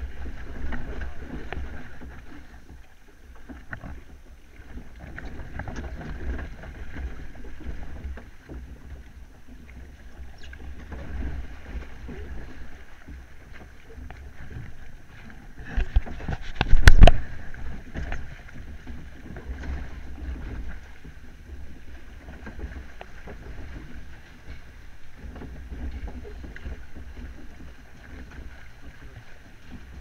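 Log flume boat floating along its water trough: water rushing and sloshing around the hull, with low wind rumble on the microphone. About halfway through there are a couple of sharp, loud knocks.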